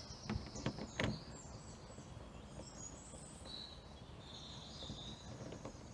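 Faint birdsong, with thin high chirps, over a quiet outdoor background; a few light clicks and one sharper knock come in the first second.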